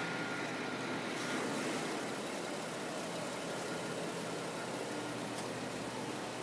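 Fifth-generation Chevrolet Camaro's engine idling steadily, a low even hum with no change in speed.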